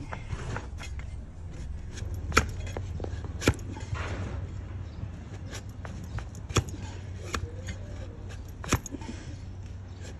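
A heavy cleaver-style hoof blade chopping and slicing down through a donkey's hoof wall against a wooden stool, with about four sharp cracks and several lighter clicks as slivers of horn split off.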